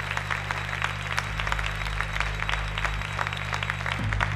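Many hands clapping in a dense, irregular patter over a low, steady musical drone.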